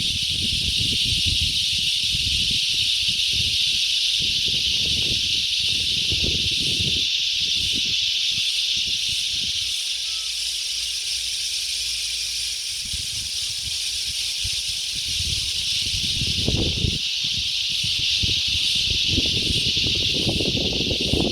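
A steady high-pitched insect chorus that keeps a constant level throughout. Wind buffets the microphone in uneven gusts, strongest about three quarters of the way through and near the end.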